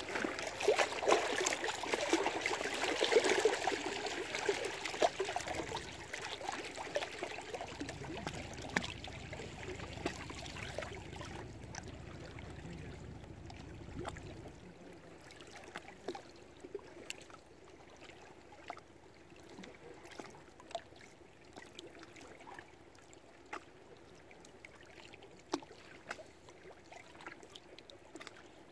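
Lake water lapping and trickling, with many small splashes, loudest in the first few seconds and then thinning out to scattered small slaps and clicks. A low hum runs for several seconds in the middle.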